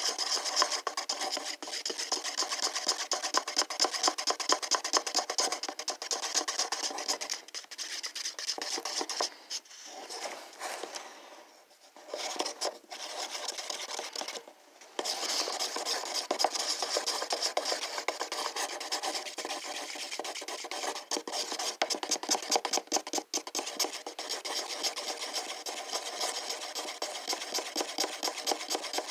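Wooden craft stick stirring Crayola washable paint mixed with Floetrol in a small paper cup, in rapid, even scraping strokes against the cup's sides and bottom. The stirring eases off for several seconds around the middle, pausing briefly twice, then picks up again.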